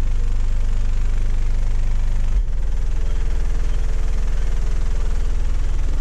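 Eight 15-inch subwoofers in a van playing a loud, held deep bass tone for a subsonic score run. The tone shifts about two and a half seconds in.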